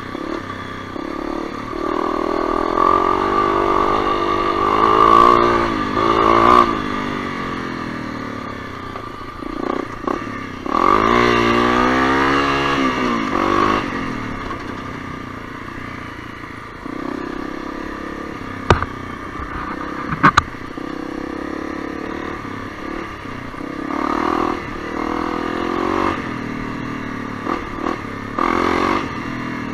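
Honda CRF250L's single-cylinder engine running on a trail ride, the throttle rising and falling, with a clear rev-up and drop about a third of the way in. A couple of sharp clicks come near the middle, and chassis clatter goes on over the engine.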